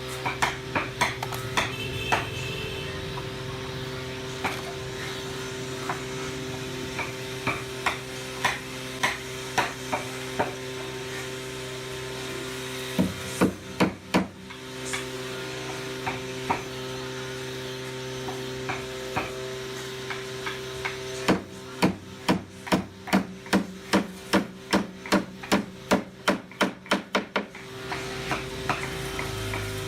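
Hammer blows on wood: scattered knocks, then a fast run of about three strikes a second for several seconds in the second half. A steady hum sits underneath, dropping out during the fast run.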